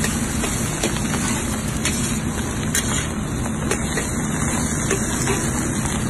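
Diced pork and scrambled egg sizzling in a large steel wok over a burner, with the steady rush of the flame underneath. A metal spatula scrapes the pan and clicks against it several times as the egg is folded into the meat.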